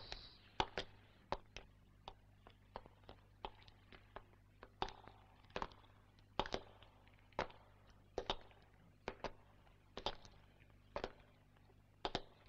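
Footsteps walking slowly through a tunnel: sharp steps on a hard floor, roughly one to two a second, with a faint steady hum beneath.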